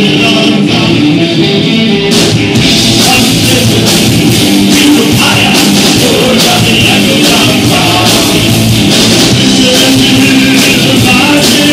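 A live rock band playing loudly on guitars and drums, with cymbal strokes coming in about two seconds in.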